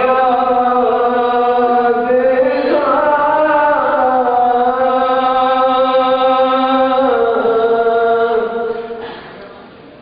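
Male vocalist singing a pursa, a mourning lament, unaccompanied, drawing out one long held phrase. The pitch steps up a few seconds in and back down later, and the note fades away near the end.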